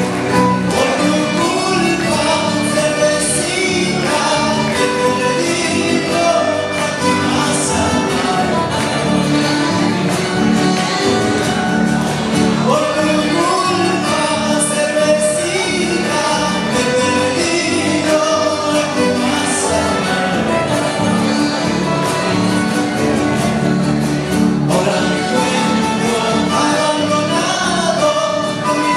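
Live Andean folk band playing a song: strummed acoustic guitars and accordion, with a lead voice singing over them.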